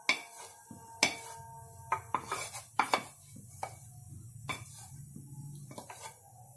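Wooden spatula scraping thick bread-custard batter out of a non-stick pan into a metal pot, with pan and spatula knocking and clinking against the metal rims again and again; some knocks leave a short metallic ring.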